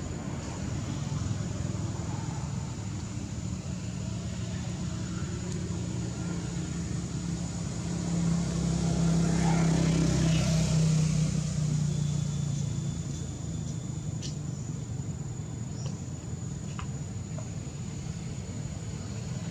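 Low engine rumble of a passing motor vehicle, swelling to its loudest about halfway through and fading again, over a faint steady high-pitched tone.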